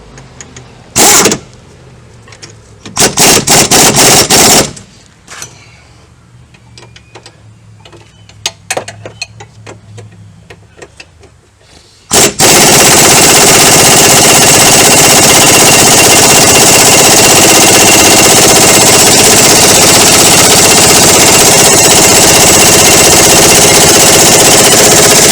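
Pneumatic impact wrench hammering on a tight strut bolt. It gives a short burst, then a longer one, then runs without stopping from about halfway in.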